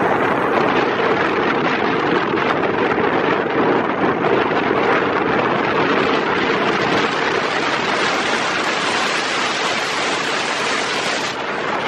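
Wind rushing over the microphone of a moving motorcycle, a loud steady noise with a faint steady hum underneath.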